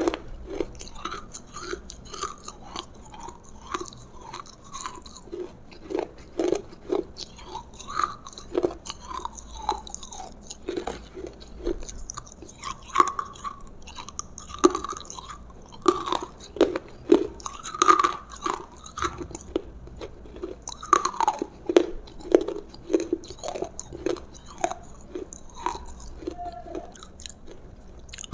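Close-miked chewing and biting of roasted food: a continuous run of wet mouth smacks and short crunches, several a second, with louder bites now and then.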